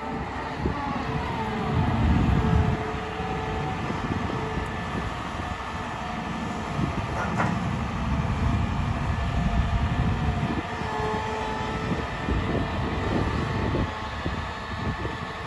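CAT M318F wheeled excavator's diesel engine running under hydraulic load while the boom, stick and bucket move and the upper structure swings. A hydraulic whine shifts in pitch, the engine swells louder about 2 s and 8 s in, and there is a sharp metallic click about 7 s in.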